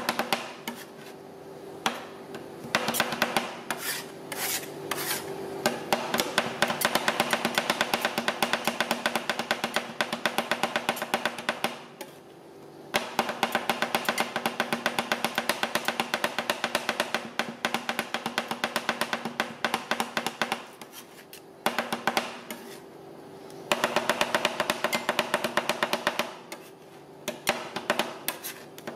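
Two steel spatula scrapers chopping ice cream on a stainless-steel cold plate: rapid metal-on-metal tapping in long runs, broken by a few brief pauses, over a steady hum.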